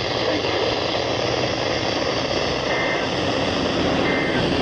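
NOAA Weather Radio heard over a weak, static-laden signal: a steady hiss and rumble. Two short, faint two-tone data bursts sound near the middle and again near the end; these are the SAME end-of-message code that closes the broadcast test.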